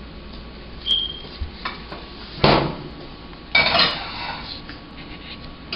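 Kitchen clatter as a cooking pot is handled: a short metallic clink with a brief ring about a second in, a solid knock about halfway through, then a quick cluster of clanks.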